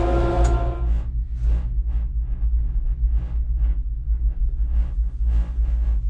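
Gondola lift: a steady multi-tone machine whine stops about a second in, leaving a low steady rumble with irregular short hissing noises.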